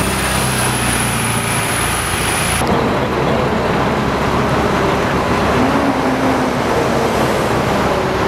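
Tour bus engine running under road noise. About two and a half seconds in, the sound changes abruptly to a steady haze of street traffic.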